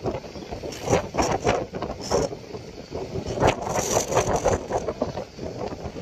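Surf breaking and washing onto the shore, mixed with gusty wind buffeting the microphone in uneven rushes of noise.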